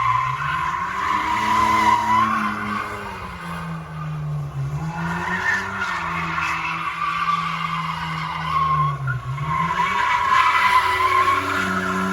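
Car engine revving up and down several times with the tires squealing and skidding, the squeal strongest at the start and again near the end.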